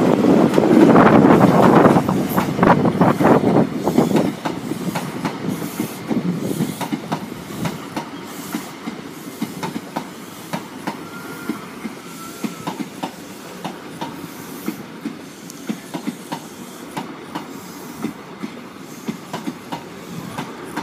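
High Speed Train's Mark 3 coaches rolling slowly past, with a steady clickety-clack of wheels over the rail joints. It is louder in the first couple of seconds, as the leading diesel power car moves away, then settles.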